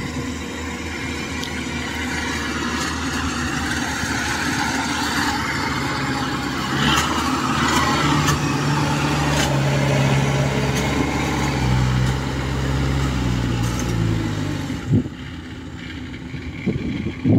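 Engine of a small tracked rice-transport cart loaded with sacks of grain, running steadily as it crawls past over the harvested field. It is loudest about halfway through, then drops away a couple of seconds before the end.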